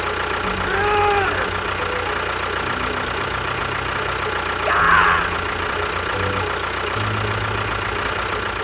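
Engine running with a steady low chugging drone, as of a small tractor. Two short pitched sounds that rise and fall come over it, one about a second in and one near five seconds.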